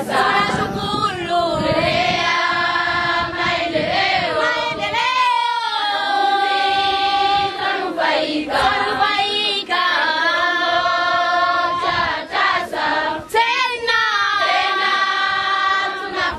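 A group of schoolgirls singing together in chorus, with long held notes between gliding phrases.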